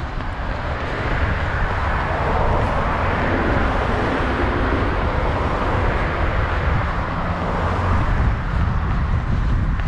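Road traffic passing: vehicle and tyre noise that swells from about a second in and eases off near the end, over a steady low rumble of wind on the microphone.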